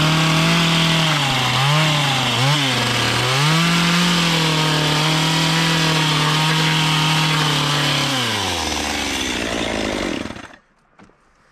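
Chainsaw running at high revs as its chain roughs up the end of a fir board, the revs dipping briefly twice early on. About eight and a half seconds in it drops back to idle, then cuts out near the end.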